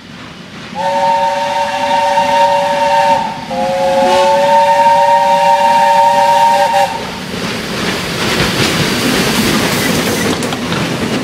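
Steam locomotive whistle sounding two long blasts, the second longer, with a chord of several tones. Then a loud hiss of steam as the engine runs close past, over the low rumble of the train.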